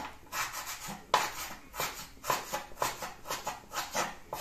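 Meat cleaver chopping chicken gizzards on a wooden cutting board, a steady run of strokes about three a second. The blade is dull, so each cut takes extra effort.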